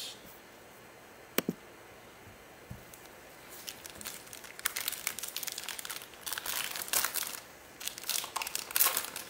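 Crinkly foil wrapper of a trading-card pack being torn open and handled, in irregular crackling bursts that start about three and a half seconds in, after a single sharp click.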